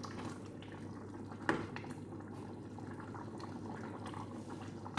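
Spaghetti sauce simmering and bubbling in a stainless steel pot as it is stirred with a wooden spoon, a steady patter of small pops and crackles. One sharp knock about a second and a half in.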